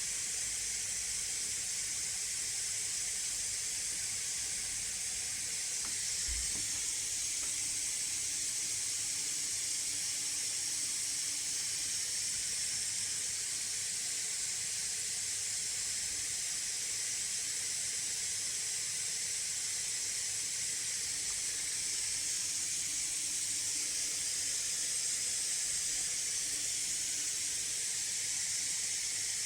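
MSI Raider GE78HX gaming laptop's cooling fans running hard under a GPU benchmark load: a steady airy hiss with no coil whine.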